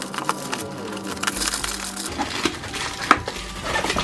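Plastic shrink wrap crinkling and cardboard rustling as a boxed power drill is unwrapped and its carton opened, with a couple of sharp snaps about three seconds in.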